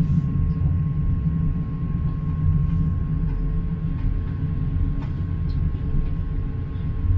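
Inside a ScotRail Class 158 diesel multiple unit: the steady low rumble of its underfloor diesel engine and running gear, with a faint, thin, steady higher tone over it.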